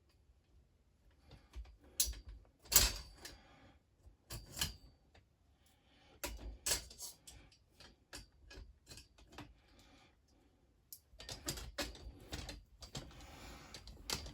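Scattered knocks and clacks of animatronic frame parts, such as the waist brackets, being handled and fitted together, with the loudest knocks about two to three seconds in. Denser clatter and rustling near the end.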